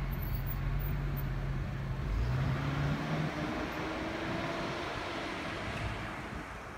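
A car driving past: a steady low engine hum that shifts up about two seconds in and rises slowly in pitch, with road and tyre noise swelling in the middle and fading near the end.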